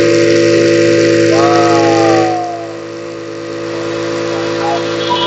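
Small DC motor on a homemade foam RC boat spinning its air propeller at full speed: a steady, loud whine that softens a little about two seconds in.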